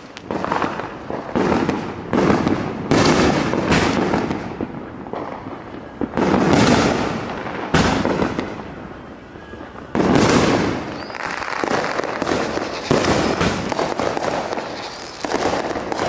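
Aerial fireworks bursting overhead in a steady series of sharp bangs, each trailing off in a rolling echo, with about a dozen bursts over the stretch.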